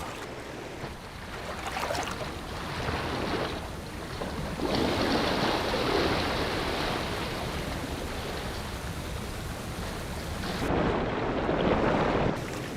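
Rushing water of a river's low falls, a steady roar that swells louder a few times and eases back.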